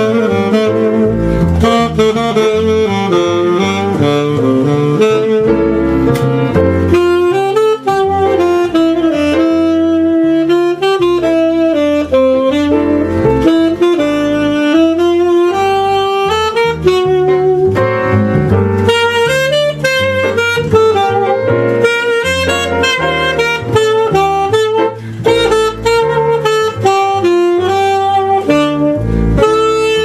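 Tenor saxophone playing a jazz melody line live, with a small jazz trio's double bass and piano accompanying it.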